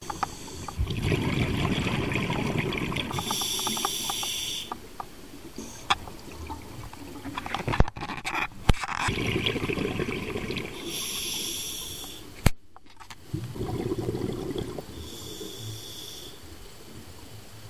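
A scuba diver breathing underwater through an open-circuit regulator: a hissing inhale about every six seconds, three in all, each followed by a low rumble of exhaust bubbles. A few sharp clicks come in between.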